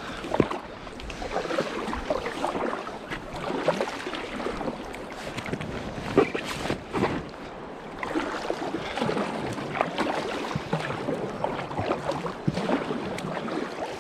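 Water splashing and sloshing around a small paddled boat on a river: an irregular run of paddle splashes and sharp watery strokes.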